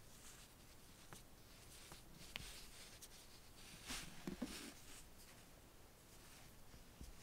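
Faint rustling and scratching of fine cotton thread against a small steel crochet hook and fingers as tiny stitches are worked. There is a light tick a little after two seconds and a louder rustle about four seconds in.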